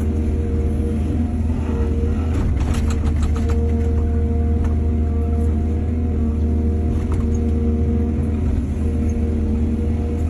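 Excavator's heavy diesel engine running steadily under load, with a rapid run of metallic clanks and rattles about two to three and a half seconds in and a few single clanks later.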